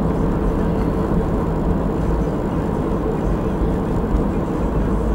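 Diesel car's engine and tyre noise heard from inside the cabin while driving at a steady pace, a continuous even rumble with no revving.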